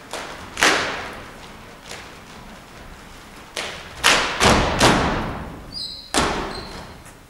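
Stomp-dance percussion: a troupe's sharp stamps and hits, irregularly spaced, with a loud cluster of four hits around four to five seconds in, each ringing out in the hall. A brief high squeak comes just before the last hit.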